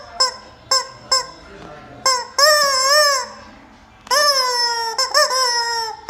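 Yellow rubber chicken squeeze toy squawked by hand again and again: a few short honks in the first second or so, then longer drawn-out squawks with short ones between, the long ones falling slightly in pitch.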